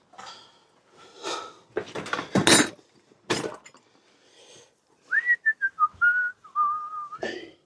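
A few short clattering, rustling handling noises in the first half, then a man whistling a short wandering tune to himself for about two seconds.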